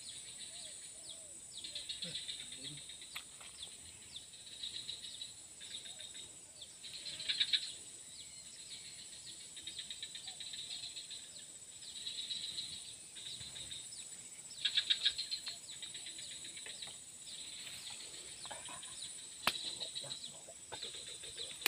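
Wild insects and birds calling: a steady high insect buzz under short bursts of rapid trilling that come every few seconds, loudest about 7 and 15 seconds in, with a single sharp click about 19 seconds in.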